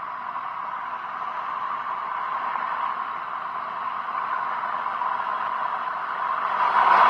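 Recorded train sound effect played through a small speaker from an MP3 sound module: a steady rushing noise that slowly grows louder, then steps up sharply near the end.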